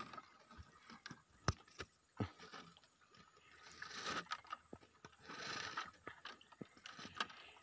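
Wet netting fish trap being handled against the wooden side of a small boat: a few sharp knocks and small clicks, with two stretches of hissy scraping and rustling about four and five and a half seconds in.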